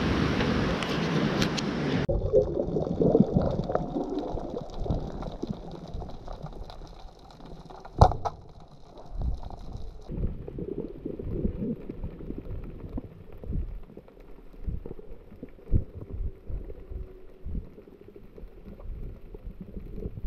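Surf and wind on a rocky shore for about two seconds, then muffled underwater sound of water moving with low rumbles and knocks. About eight seconds in comes one sharp crack of a speargun being fired underwater: a missed shot.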